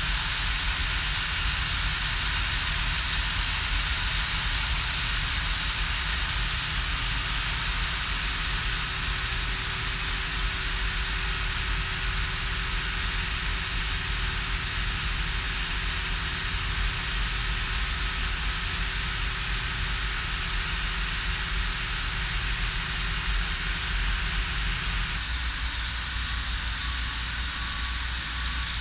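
16mm film projectors running: a steady mechanical whir and low hum with hiss on top. A faint steady tone within it stops near the end.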